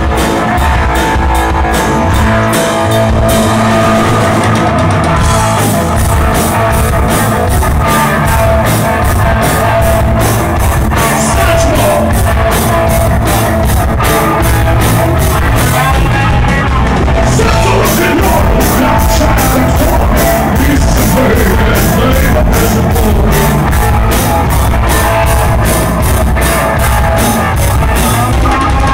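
Live rock band playing loud: electric guitar, electric bass and a full drum kit with steady cymbal strokes, with a singer's voice over them.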